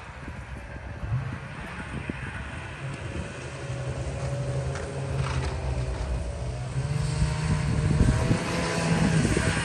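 Snowmobile engines running and approaching, growing steadily louder, their pitch rising and falling slightly with the throttle.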